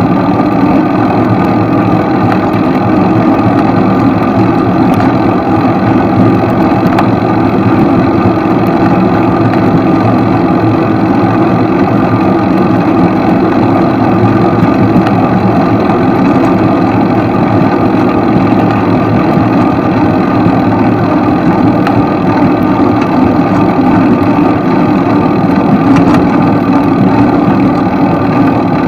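A steady, loud engine-like hum that holds one pitch, with a constant noisy rush underneath.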